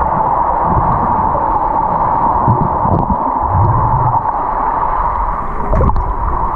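Swimming pool heard through a submerged camera: a steady muffled hiss with irregular low rumbles and swishes of water moving around the microphone.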